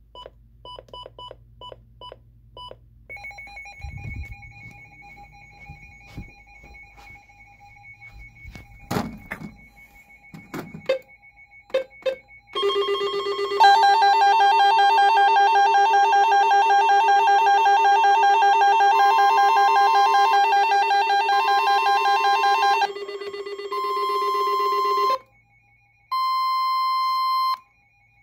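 Several radios sounding electronic alert tones at once during a test. Short beeps come first, then a few knocks, then from about twelve seconds in many steady alarm tones blare together in a loud jumble. Near the end this gives way to on-off beeping of a single tone.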